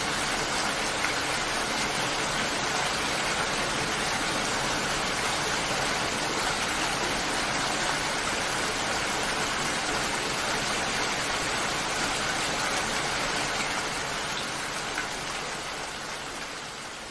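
Steady rainfall, an even hiss of many drops with no single strikes standing out, slowly fading out in the last few seconds.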